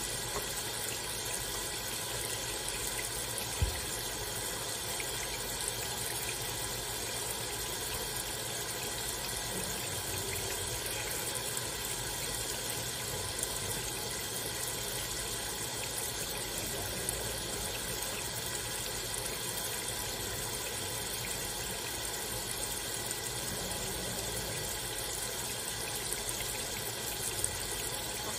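Kitchen faucet sprayer running steadily, its water stream pouring into the sink. A single brief knock about three and a half seconds in.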